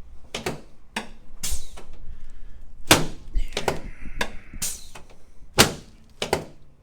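A series of sharp knocks and thunks, about eight of them spread unevenly, the loudest about three seconds in and near the end. They come from a chiropractic treatment table as its head piece is raised under a patient lying face down.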